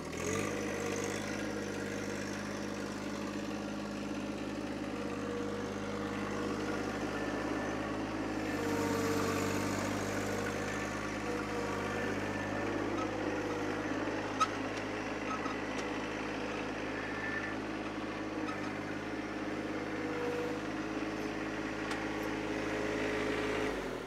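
John Deere compact tractor's diesel engine running steadily as the tractor drives with a load of lumber slabs on its front-loader forks, with a single sharp click about halfway through.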